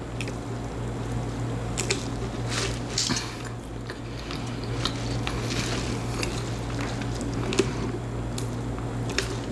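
Close-up mouth sounds of drinking soda (Coke): sips, swallows and soft wet clicks, over a steady low hum.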